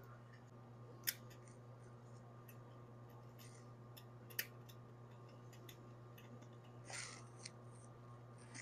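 Near silence: a steady low hum with a few faint sharp clicks, one about a second in and one just past four seconds, and a brief faint rustle near seven seconds.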